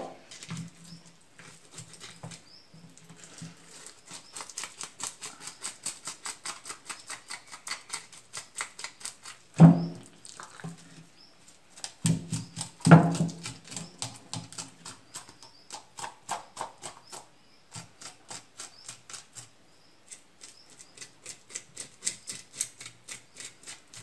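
Knife blade scraping the scales off a whole carp on a wooden cutting board, in quick repeated strokes of about five a second, with a few louder thumps as the fish is knocked against the board and turned over.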